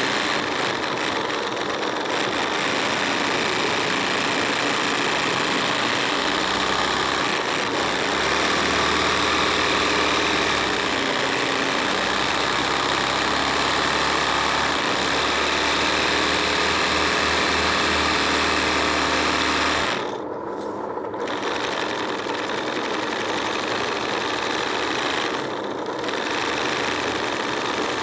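Electric sewing machine running steadily at speed while stitching hand-guided kadai embroidery on fabric in a hoop. The high frequencies drop out briefly twice in the latter part.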